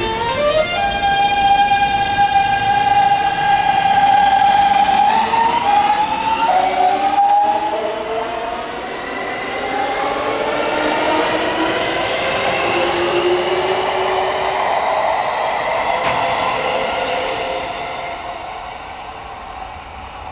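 Electric train pulling away, its inverter and traction motors whining: the tone climbs in quick steps to a steady high pitch, shifts pitch a couple of times, then gives way to rolling noise that fades near the end.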